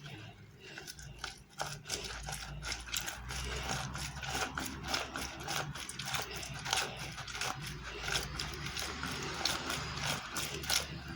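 A lemon being squeezed on a citrus juicer: a dense run of quick rubbing and clicking, with a low steady hum from about two seconds in.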